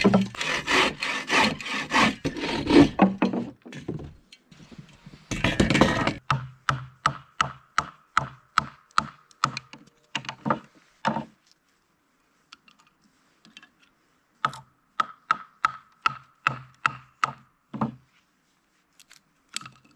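A bow saw cutting through a dry, barked softwood branch in quick back-and-forth strokes for the first few seconds, with a short second burst of sawing. Then comes a long series of evenly spaced sharp wooden knocks, about two to three a second, with a pause in the middle, as dry wood is split into small kindling splinters.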